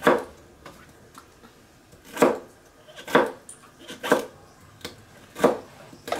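Chef's knife chopping celery on a wooden cutting board: five separate sharp knocks of the blade on the board, a second or two apart.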